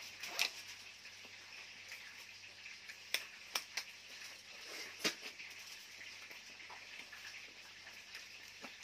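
Cooked lobster shell being cracked and pulled apart by hand, giving a few sharp cracks and clicks: one about half a second in, a quick cluster a few seconds later, and another about five seconds in, over a faint steady hiss.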